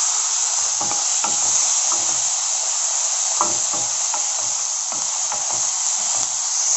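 Chopped onion, capsicum and tomato sizzling in oil in a kadhai with a steady hiss, while a wooden spatula stirs them, scraping and knocking against the pan in an uneven rhythm about twice a second.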